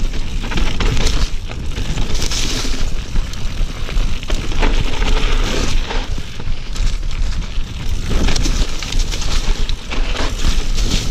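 Wind buffeting an action camera's microphone over the rumble of a Yeti SB6c full-suspension mountain bike's tyres on a dry dirt and leaf-strewn trail, with frequent clattering knocks as the bike bounces over bumps.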